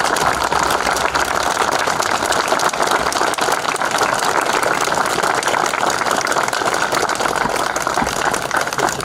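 A crowd applauding: many people clapping steadily.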